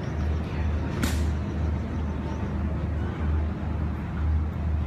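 Deep bass beat of dance music played loud over a venue's PA system, heard as a muffled low throb about twice a second over hiss, with one sharp click about a second in.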